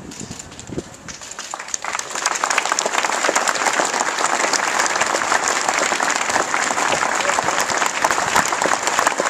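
A large crowd applauding, the clapping swelling over the first two seconds and then holding steady.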